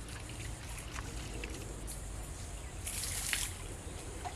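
Light splashing and trickling of pond water at the bank's edge as hands work in the shallows, with a brief louder splash about three seconds in.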